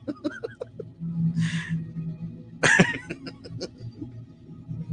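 A man chuckling and laughing under his breath in short, breathy bursts, loudest about three seconds in, over a low steady hum.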